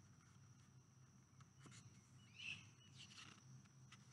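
Near silence: faint outdoor background with a thin steady high tone, a low hum and one brief faint chirp about two and a half seconds in.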